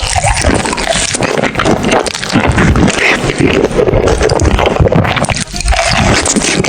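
Close-miked eating of fried chicken in cheese sauce: a dense, irregular run of wet chewing and mouth sounds.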